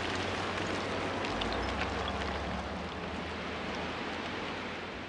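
Steady rushing hiss of falling earth and dust over a low drone of heavy machinery, with a few scattered ticks of grit, slowly fading.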